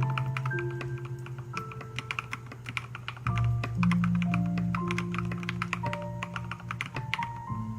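Rapid typing on an Akko MOD001 mechanical keyboard with MT3 Serika keycaps: a fast, uneven run of sharp keystroke clicks, thinning out near the end.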